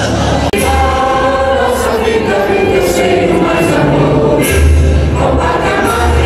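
Christian worship music: a choir singing long held notes over deep, swelling bass notes.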